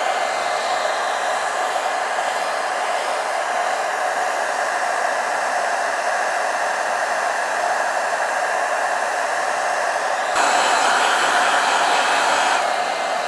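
Handheld blow dryer running on its hot setting: a steady rush of air with a held whine. About ten seconds in it grows louder and brighter.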